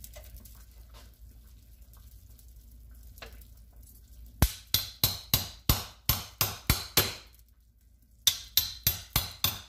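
Knife chopping down through corn on the cob onto a cutting board: a fast run of sharp knocks, about three a second, that starts a little before halfway, breaks off for about a second, then resumes.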